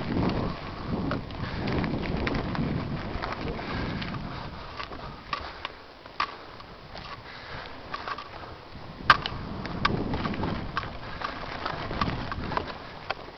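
Mountain bike riding a dirt trail, recorded from a helmet-mounted camera: tyre rumble and wind noise that fade as the bike slows to ride along a narrow log, with scattered sharp clicks and knocks from the bike, the loudest about 9 seconds in.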